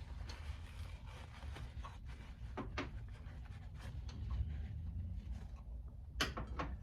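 Small clicks and rubbing from handling the parts of a heater fan motor being reassembled, with a few sharper metal clicks around three seconds in and a louder one near the end, over a steady low background hum.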